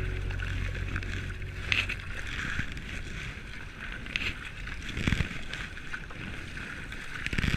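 Kayak on a river: a paddle dipping and water splashing now and then, with wind buffeting the microphone.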